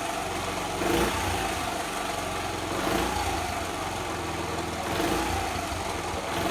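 Honda C70 motorcycle's small single-cylinder four-stroke engine running on full choke, just started for the first time after standing for a long while. It runs steadily, swelling a little about every two seconds; the idle is not yet set.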